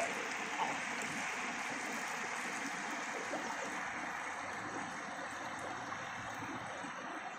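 River water flowing steadily, an even hiss of moving water that eases off a little near the end.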